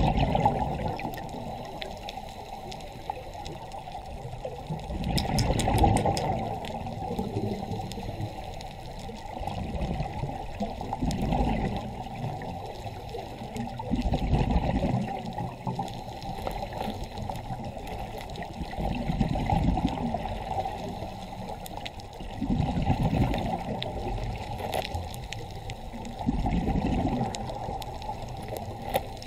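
Underwater ambient sound picked up by a camera on a reef: muffled water noise with bubbling, gurgling swells about every four to five seconds.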